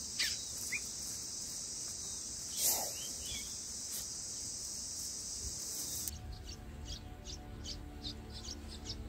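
A steady high insect drone with a few short bird chirps, cut off sharply about six seconds in. It is followed by rapid, repeated high chirps, about three a second: bulbul nestlings begging as they are fed.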